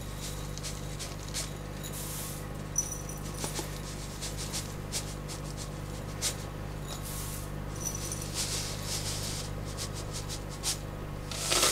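Dry rolled oats sliding and pattering out of a plastic container into a glass bowl, in uneven rustling spurts with small clicks, over a steady low electrical hum. Two short high squeaks come about three and eight seconds in.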